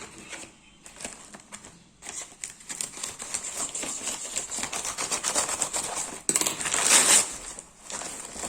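Plastic courier packaging being handled and torn open: a run of crinkling and crackling with quick clicks that starts about two seconds in, with a louder rip about six and a half seconds in.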